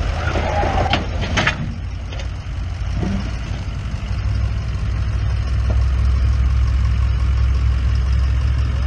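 Full-size pickup truck's engine running at low speed as it crawls down a steep rock ledge, growing louder a few seconds in. A couple of short knocks about a second in.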